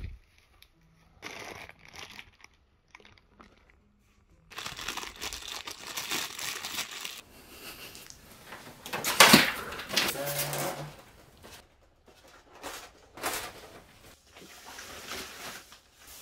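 Plastic bagging and foam packaging sheet crinkling and rustling as a monitor is unpacked by hand. It is mostly quiet for the first few seconds, then an irregular run of crinkles follows, with one loud, sharp rustle about nine seconds in.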